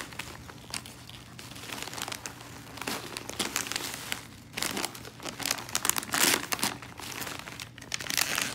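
Gift wrapping paper crinkling and tearing as a present is unwrapped by hand, the rustling coming and going in several spells.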